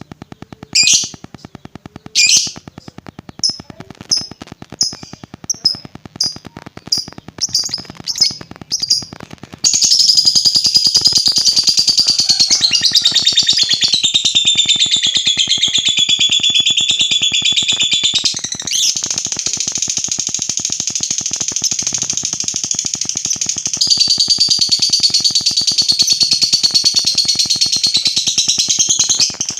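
Lovebird calling: short sharp high chirps that come faster and faster for about ten seconds, then break into one long unbroken chattering trill (ngekek) that lasts nearly twenty seconds.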